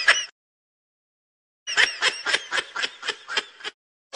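High-pitched laughter sound effect: a short laugh at the start, then after a pause a quick run of 'ha' bursts, about five a second, for some two seconds.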